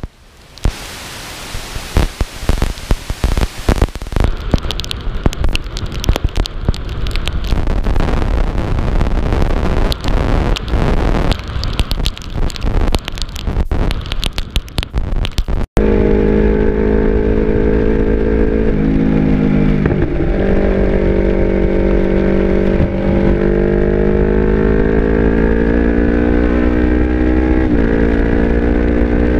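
Rushing, crackling noise fills the first half and then cuts off suddenly. It gives way to a Yamaha R25's parallel-twin engine with an Akrapovic exhaust running under load. The engine's pitch climbs steadily, with a drop at a gear change twice.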